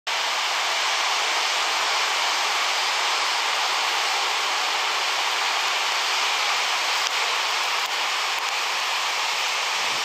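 Steady rushing hiss of small Mediterranean waves breaking and washing up a sandy beach, with no single wave standing out.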